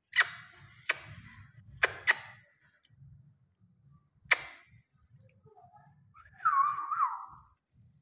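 Fischer's lovebirds giving short, sharp chirps, five in the first four and a half seconds. A wavering whistle follows near the end.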